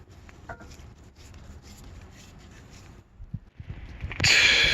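Faint clicks and rubbing of hand tools working at a brake caliper's bleed screw, then about four seconds in a louder hiss-like noise starts.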